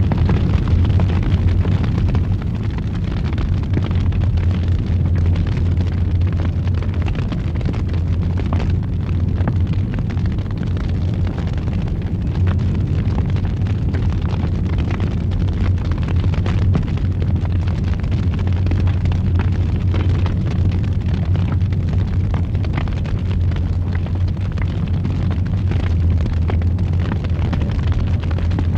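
Wood fire burning in a fireplace: a steady low roar with scattered sharp crackles and pops.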